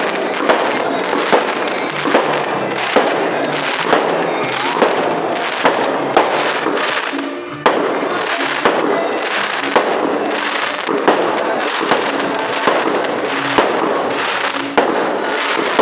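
Fireworks crackling and popping without a break, with sharp cracks about once a second, over music playing underneath.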